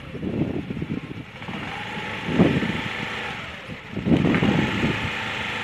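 Honda Activa 6G scooter's small single-cylinder engine being revved, rising and falling in several throttle blips, the loudest about halfway through and again near the end.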